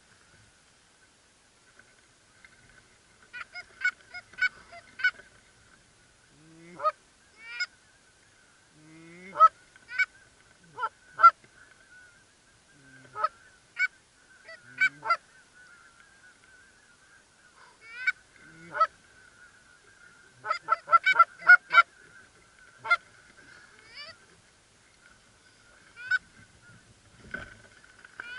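Geese honking and clucking at irregular intervals, singly and in quick runs of several, some calls sliding upward into the honk.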